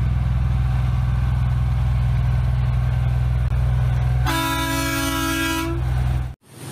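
Semi truck's diesel engine running with a steady low drone as the truck pulls slowly away, and its horn sounding once for about a second and a half a little past the middle.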